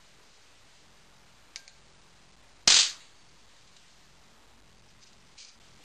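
A single sharp bang about two and a half seconds in: a high-voltage DC capacitor discharging through distilled water, whose shockwave bursts the plastic container and knocks its bottom out. The bang dies away in a fraction of a second.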